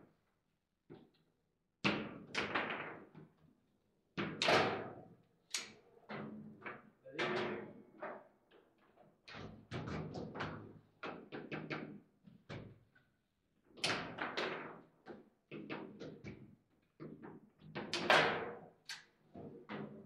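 Table football being played: irregular hard knocks and clacks as the ball is struck by the plastic figures, rods bang and the ball hits the table walls, with a few much louder shots.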